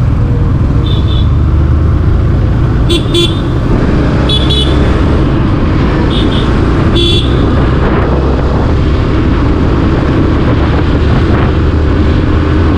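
Motorcycle engine running steadily at road speed, heard from on the bike, with short horn beeps about five times in the first seven seconds.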